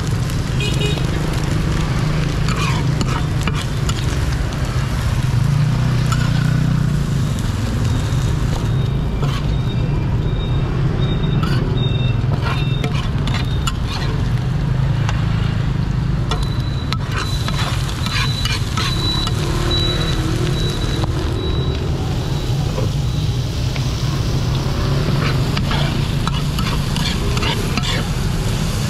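Oil sizzling in a large flat iron frying pan of rice-flour cake, with a metal spatula scraping and clicking against the pan many times, over a steady low hum.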